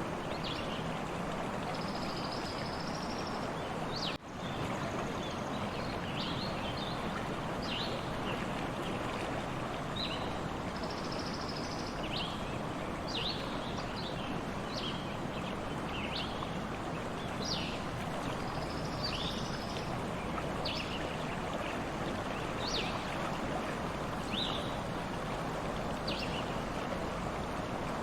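A stream running steadily, with small birds chirping in short, high calls over the water throughout. The sound briefly drops out about four seconds in.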